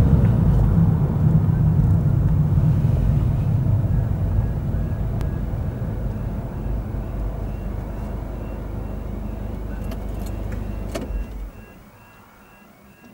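Car cabin noise, a low rumble of engine and tyres that fades as the car slows, then drops away sharply near the end as it comes to rest, with a click just before. Faint repeated beeping of the level crossing's warning alarm runs underneath from about a third of the way in.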